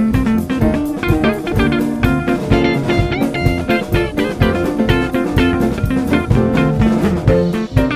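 Band music: guitar and drum kit playing with a steady beat.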